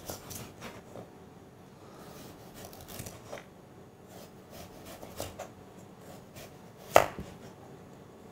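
Chef's knife slicing a carrot into thin slices on a plastic chopping board: a series of irregular knife strokes tapping the board, the loudest about seven seconds in.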